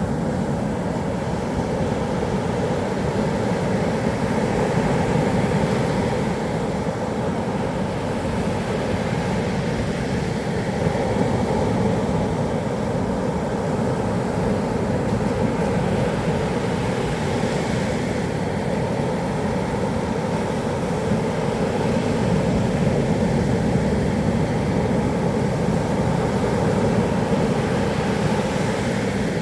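Heavy typhoon surf breaking on a sandy beach: a continuous loud rushing wash that swells and eases slowly as the waves come in.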